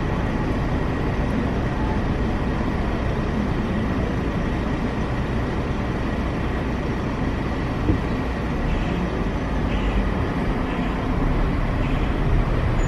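Steady low rumble of a car engine and cabin noise, heard from inside a car that idles and creeps forward slowly.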